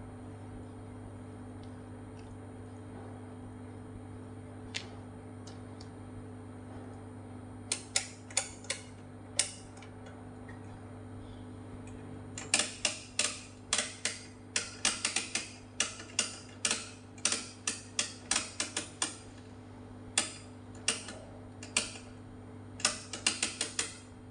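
Oscilloscope rotary selector knobs clicking through their detent positions in quick irregular runs, starting about eight seconds in, over a steady low electrical hum.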